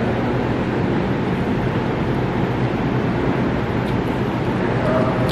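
A steady low rumbling noise, with a couple of faint clicks late on.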